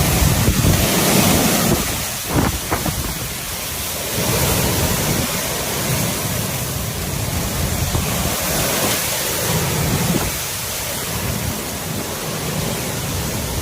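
Severe thunderstorm: strong wind gusting and heavy rain hissing, with the wind buffeting the microphone. There are a few brief knocks about two and a half seconds in.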